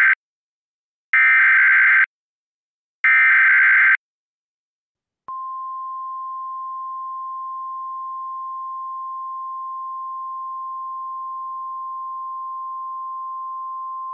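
Emergency Alert System header: the end of one burst and two more complete bursts of warbling digital data tones, each about a second long and evenly spaced, then a single steady attention tone that begins about five seconds in and sounds without a break. This is the opening of a broadcast tornado warning.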